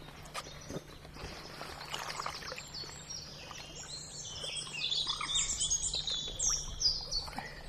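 Birds singing in quick, high chirps and trills, busiest from about three seconds in. Under them, light splashing of water as a carp is released from a wet sling into the lake shallows.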